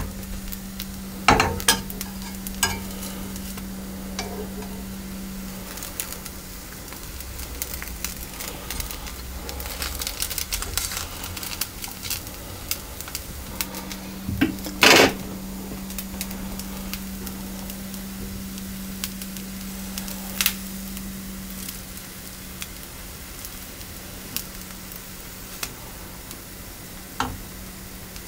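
Thin pancake batter sizzling in a non-stick frying pan while a spatula scrapes and taps against the pan as the pancake is loosened and turned over, with a handful of sharp clicks and knocks, the loudest about halfway through. A low steady hum drops out early on and comes back.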